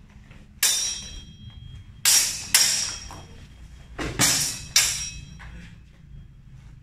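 Steel longsword blades clashing in sparring: about six sharp, ringing clangs, coming in quick pairs.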